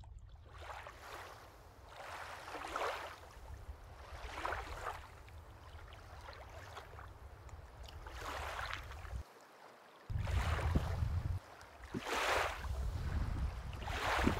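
Canoe paddle strokes splashing in the water every second or two, over a steady rumble of wind on the microphone.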